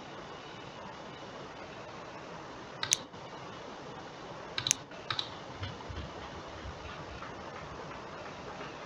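Computer mouse clicking: a single click about three seconds in, then a close pair of clicks near the middle, over a steady low hiss.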